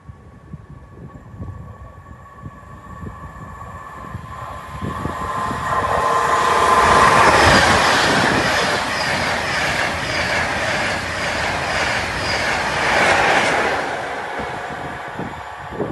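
A train passing along the West Coast Main Line, swelling to its loudest about seven seconds in and fading near the end, with a regular clacking of wheels over the rails as it goes by.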